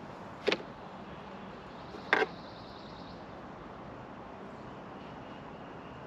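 Two sharp clicks about a second and a half apart, from a small plastic pool fitting knocked against the above-ground pool wall as it is fitted; the second click rings briefly. A steady low hiss runs behind.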